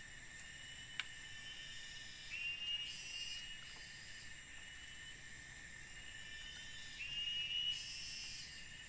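Forest insects buzzing in steady high-pitched tones over a constant hiss, swelling louder about two seconds in and again near the end. A single sharp click about a second in.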